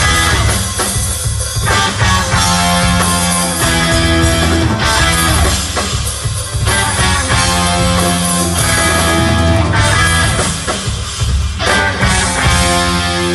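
Live rock band playing an instrumental passage, with no vocals: distorted electric guitar, bass and drum kit.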